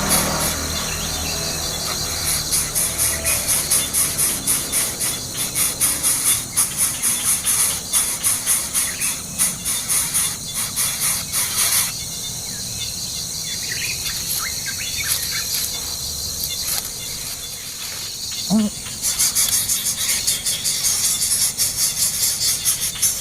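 Insects trilling in a fast, evenly pulsing high-pitched chorus, easing off in the middle and coming back strongly near the end, with a few faint bird chirps.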